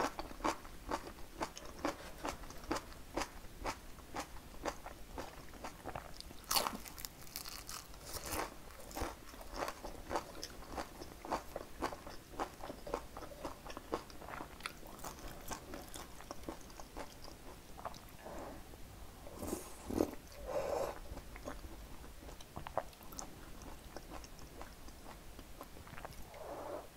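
Close-miked crunchy chewing of fresh napa cabbage kimchi (geotjeori), rapid crisp crunches for the first half, giving way to softer, wetter chewing.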